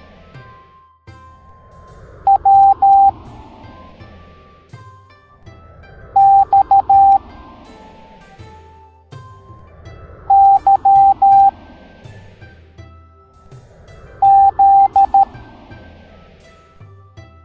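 Morse code beeps: a steady tone of one pitch keyed in short and long pulses, one letter's group about every four seconds, four groups in all, over light background music.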